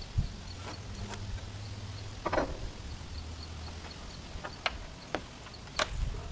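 Scattered light knocks and clicks from hand work at a wooden overhead beam done from a stepladder, with a few more as the worker steps down the ladder near the end. Under them, a low outdoor rumble and a faint, regular high ticking.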